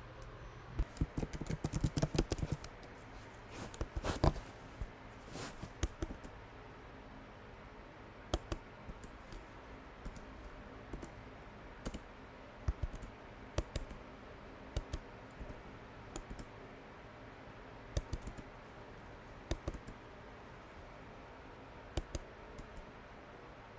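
Computer keyboard keys clicking: a quick run of typing in the first few seconds, then single keystrokes every second or two.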